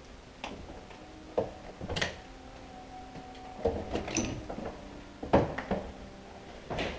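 Footsteps, knocks and scuffs of people moving over a debris-strewn floor, about seven sharp knocks at irregular intervals.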